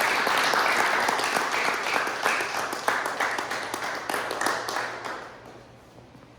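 A group of people applauding, many hands clapping at once, dying away about five seconds in.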